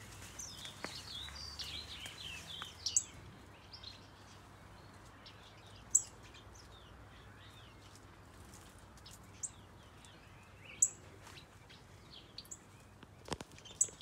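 Many small aviary birds, a mix of finches and softbills, chirping and twittering: a busy flurry of calls in the first few seconds, then scattered sharp, high single chirps. A single short click sounds near the end.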